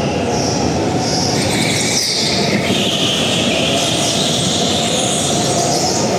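Go-kart running around a track, its motor holding a steady note while the tyres squeal again and again through the corners.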